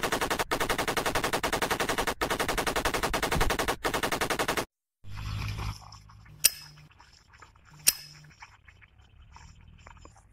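Rapid machine-gun fire sound effect, broken by three short gaps, for about four and a half seconds. After a moment of silence, two sharp single clicks come about a second and a half apart: a red disposable lighter being struck.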